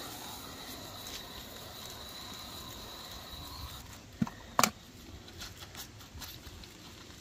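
A garden hose spray nozzle runs with a steady hiss and a faint high whistle as water rinses a dog's soapy legs, then stops after about three and a half seconds. Two sharp knocks about half a second apart follow. After them comes soft wet squishing and clicking of hands working lather through wet fur.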